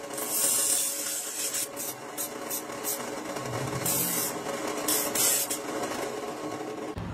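Abrasive chop saw running with a steady motor hum, its cut-off wheel grinding into metal pipe in a series of rasping hisses: one lasting nearly a second at the start, then several shorter bites.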